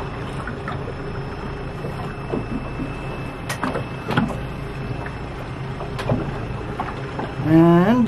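Small boat's motor running steadily with water and hull noise, and a few light knocks partway through.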